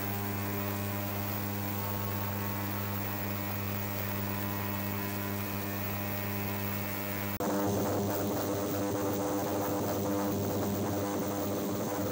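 Ultrasonic cleaner running with watch case parts in its bath: a steady electrical hum and buzz with a hiss above it. The sound shifts abruptly about seven seconds in, turning noisier, then carries on steadily.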